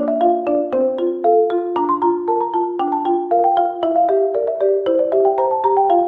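Background music played on marimba: a bright, bouncy melody of quick struck notes.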